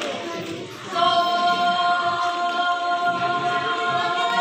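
Unaccompanied church choir singing one long, steady held note that comes in about a second in, over low murmur from the hall.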